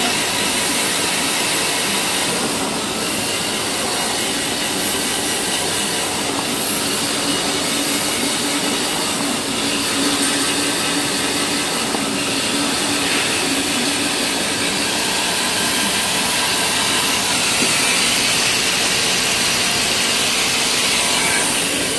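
Band saw of a semi-automatic maxi roll paper cutting machine running, cutting a jumbo roll of tissue paper into maxi rolls: a steady whirring hiss with a faint low hum.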